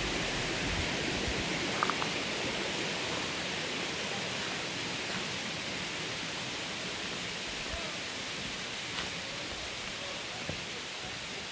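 Steady hiss of rushing water from a mountain waterfall, growing slightly fainter over the last few seconds, with a few faint clicks.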